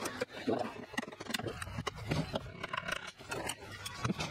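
Scattered light clicks and clinks of small metal engine parts being handled and tapped during an engine teardown, with faint murmured voices underneath.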